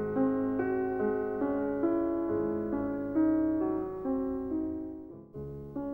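Background piano music: a slow line of separate notes, each ringing and fading, over held low notes, with a brief pause near the end before a new chord.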